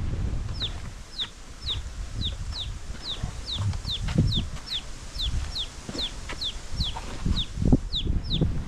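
A bird calling a short, high note that falls in pitch, repeated steadily about two to three times a second.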